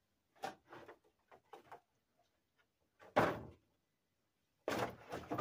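Knocks and clatter of utensils and a whole roast duck against a disposable foil roasting pan as the duck is lifted and turned over: a few light knocks, one louder thump about three seconds in, then a run of rattling near the end.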